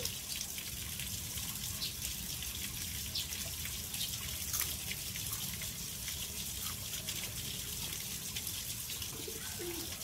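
Steady rush of running water in the background, with a few faint ticks.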